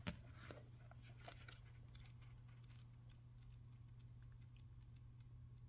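Faint rustling and flicking of book pages as they are flipped through by hand, with a soft tap of the book being handled near the start.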